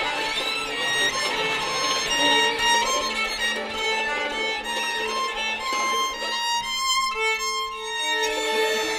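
Two violins bowing sustained notes that change in pitch every second or so. A low held note through the middle gives way to a higher held note near the end.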